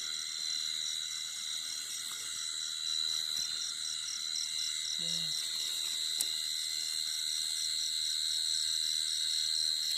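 Night insect chorus: crickets trilling steadily and high-pitched, with a faster pulsing chirp layered over the trill. A single sharp click comes about six seconds in.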